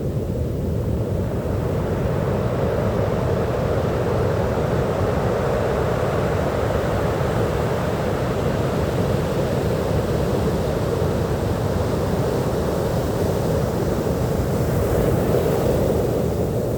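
Sea surf breaking and washing on a beach: a steady low rushing noise that swells a little about a second in and again near the end.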